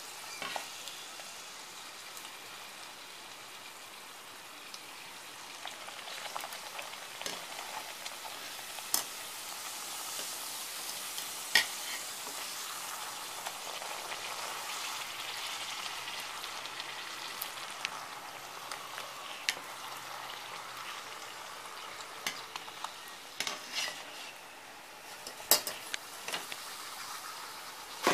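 Semolina-and-maida phuchka puris deep-frying in hot oil in a wok, puffing up: a steady sizzle of oil. Now and then there is a sharp click as a metal utensil taps the pan.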